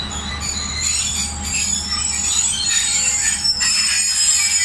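Passenger train coaches rolling slowly along the platform, their steel wheels squealing against the rails in several high, shifting tones over a low rumble. The squeal grows louder toward the end.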